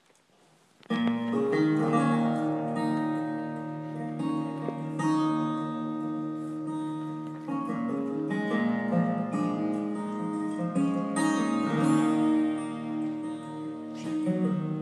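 Music led by plucked string instruments, with notes held over steady low tones, starts suddenly about a second in after near silence. It is played over the hall's sound system as accompaniment for the dancers.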